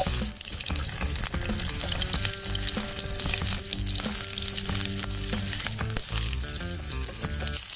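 Sliced onions dropped into hot cooking oil in a nonstick frying pan, landing with a thud at the start and then sizzling steadily as they begin to sauté.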